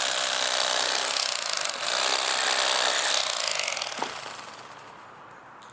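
Bubba Blade cordless electric fillet knife running and cutting through catfish, its blades buzzing steadily, then stopping a little under four seconds in. The owner finds this newer set of blades already getting dull.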